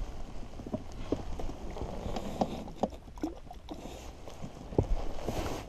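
Irregular light knocks and rustling from handling a landing net and gear on the floor of an inflatable boat, with a small cluster of knocks near the end.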